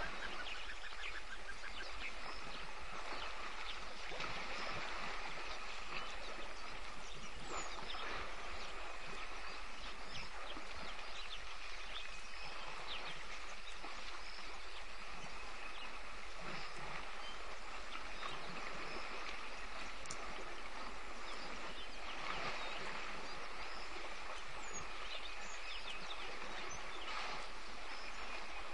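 Steady outdoor bush ambience: a constant hiss with scattered faint bird calls and chirps.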